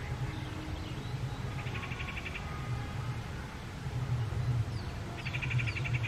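Outdoor garden ambience with a steady low rumble underneath. Two short, rapid rattling trills sound about a second and a half in and again near the end, and a few faint high chirps come just before the second.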